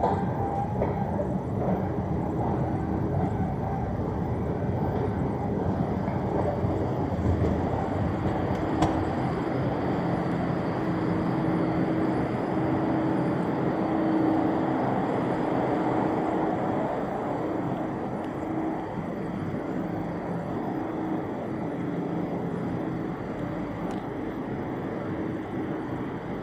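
Steady hum and rumble of machinery in a deep underground railway station, with a faint steady tone that comes and goes around the middle.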